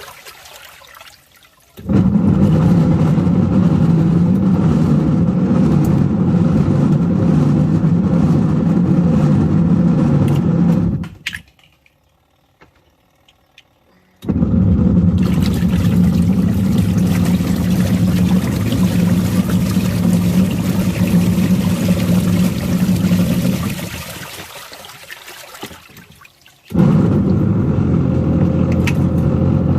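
Small washing machine running with water churning inside, its motor humming steadily; it stops about 11 seconds in, stays off for about three seconds, starts again, dies away near the 25-second mark and starts up once more.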